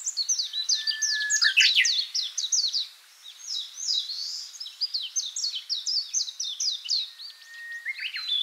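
Songbirds singing: quick runs of short, high, falling chirps, joined twice by a long level whistle at a lower pitch, once near the start and once near the end. The chirping thins out briefly about three seconds in.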